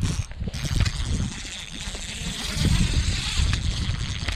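Wind buffeting an action camera's microphone: an uneven, gusting rumble with a steady rushing hiss over it, mixed with the rustle of jacket fabric moving close to the camera.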